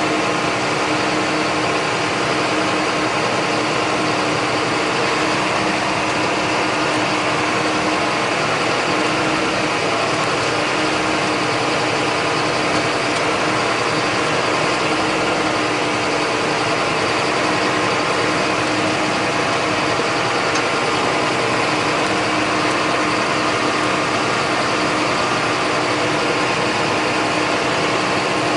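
John Deere 8100 tractor's six-cylinder diesel running steadily under a constant load, with one steady droning tone.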